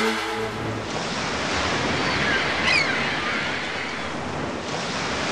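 Waves washing on a shore as a steady rush, with a few short, high, gliding calls about two and a half seconds in. The tail of the background music fades out in the first second.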